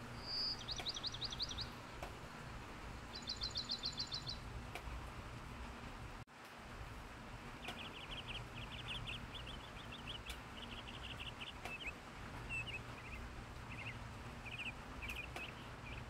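Small songbirds singing: two quick, high, rapid trills in the first few seconds, then a string of lower chattering trills from about halfway on. Under them runs a steady hiss of light rain, which cuts out for an instant a little before halfway.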